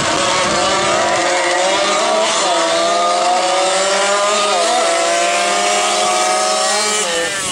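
Two-stroke 50cc moped engines revving high and holding at the start line of a drag race, the pitch wavering slightly and dropping near the end.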